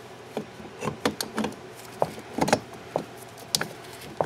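Cylinder of a two-stroke engine being worked down onto the crankcase studs: irregular metal clunks and clicks as it knocks and shifts, with the loudest knock about two and a half seconds in and a sharp click about a second later. It is a tight fit.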